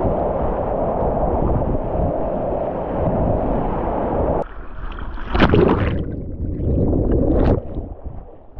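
Whitewater rapids rushing close to a kayak, heard from its deck. After about four seconds the rush drops away suddenly, and two loud splashes follow before quieter moving water near the end.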